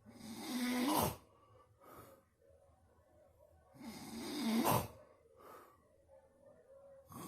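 A person snoring really loud: two long snores about four seconds apart, each swelling to a peak and stopping abruptly, with softer breaths out between them. A third snore begins near the end.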